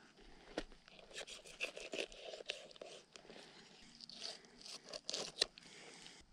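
Pocket knife cutting a fillet from a small smallmouth bass: irregular short scrapes and crunches as the stiff blade works along the fish's spine.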